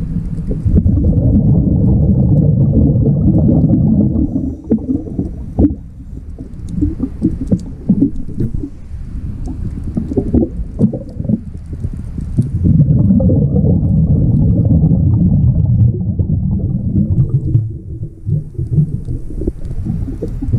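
A scuba diver's exhaled bubbles rumbling past the underwater camera in two long breaths, one starting about a second in and another about halfway through, with scattered clicks and crackles in between.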